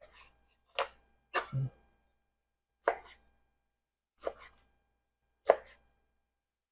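Knife slicing through a cooked pork chop, the blade knocking on the cutting board about five times, a second or so apart.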